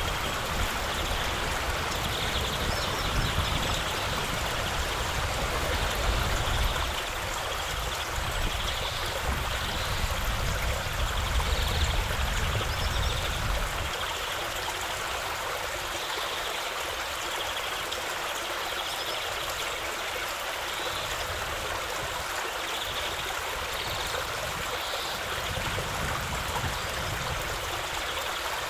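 Steady rush of a flowing river, with a deeper rumble in the first half that drops away about halfway through.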